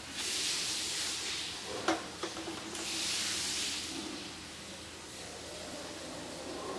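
Hand-washing: two spells of hiss, each about a second and a half, with two sharp clicks between them about two seconds in.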